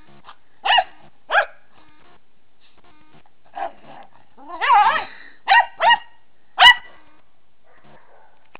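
English Cocker Spaniels barking in play while wrestling: a string of short, sharp barks, two in the first second and a half, a longer wavering bark about halfway, then three more sharp barks.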